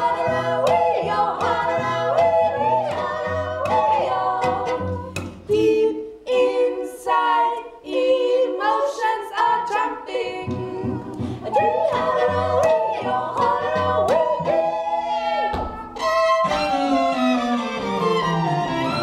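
Women's voices singing together over two violins and a cello. Around the middle the singing breaks for sharp plucked or struck notes. Near the end the voices stop and the bowed strings carry on, with a line sliding down in pitch.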